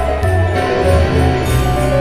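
Background music with jingle bells over a strong bass line.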